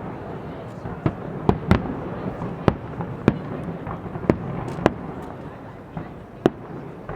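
Fireworks display: shells bursting in sharp bangs at irregular intervals, some loud and some fainter, over steady background noise.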